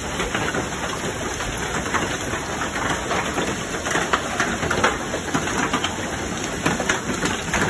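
Hail and heavy rain falling, a steady hiss with many scattered sharp clicks of hailstones striking a wooden porch deck and lawn.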